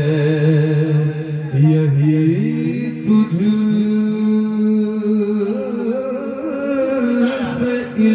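A man singing a naat into a microphone through a PA system, holding long notes that waver and slide ornamentally between pitches.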